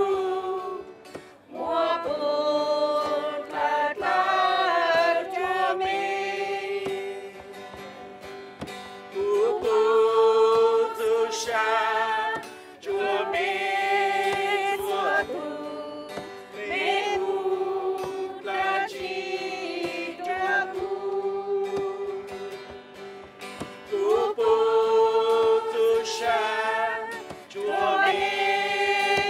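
A group of voices singing a worship hymn together in long, held phrases, with short breaks between the lines.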